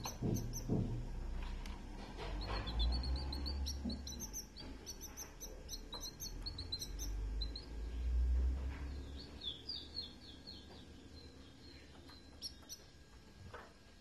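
Canaries chirping in a cage: many short, high chirps in quick runs, thinning out towards the end. Two low rumbles, around three and eight seconds in, are the loudest moments.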